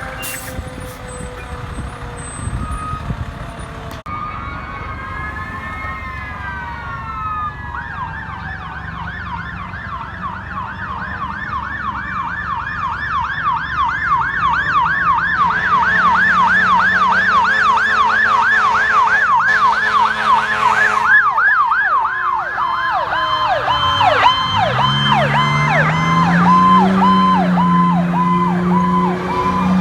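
Emergency vehicle siren: a slow rising and falling wail, then a fast yelp sweeping up and down about three times a second for most of the time. A low rising growl joins near the end.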